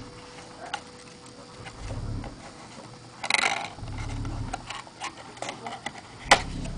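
Cardboard pet carrier box being handled and opened by hand: scattered light clicks and scratches, a short burst of rustling about three seconds in, and a sharp click near the end.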